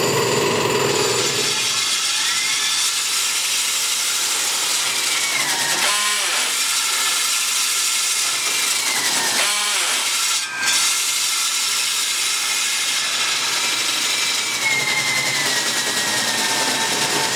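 Milwaukee MX FUEL battery-powered handheld core drill running under load, a steady grinding with a motor whine whose pitch sags and recovers twice as the bit bears down, and a brief dip in level about ten seconds in.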